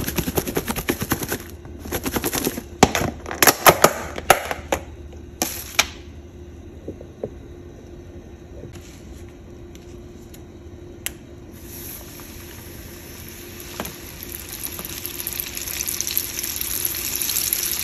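Fish fillets shaken in a plastic container of cornmeal fish breading, a run of rattles and knocks. About twelve seconds in, a breaded fillet lowered into hot peanut oil sets off a sizzle that grows louder toward the end.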